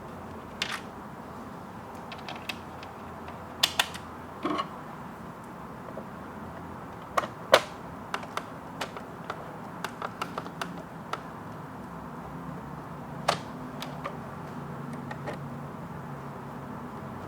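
Screws being set and driven with a Phillips screwdriver into a plastic keyboard case: scattered sharp clicks and taps, with a run of small rapid clicks partway through.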